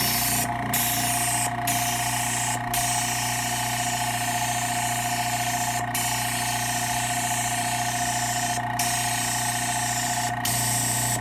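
Point Zero airbrush spraying paint in a steady hiss, with six brief drops in the air during the run and a steady hum underneath. The brush is splattering paint rather than laying a fine mist.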